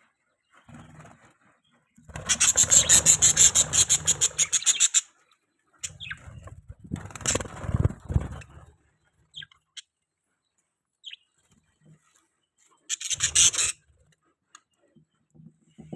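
Budgerigars chirping in loud bursts of rapid chatter: a long run of quick pulses about two seconds in, more chirping around the middle, and a shorter burst near the end.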